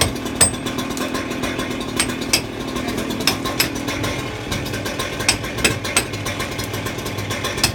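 Hammer-and-chisel strikes chipping out a saw-cut section of masonry wall: sharp, separate metallic knocks at an irregular pace, about one every half second to a second. Under them runs a steady engine hum.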